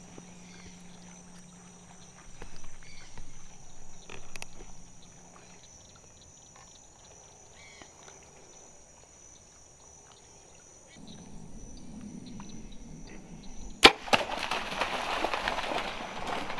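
A bow shot: one sharp crack of the bowstring about fourteen seconds in, followed at once by loud splashing as the arrow-hit deer bolts through shallow swamp water. Softer rustling comes earlier, in the first few seconds.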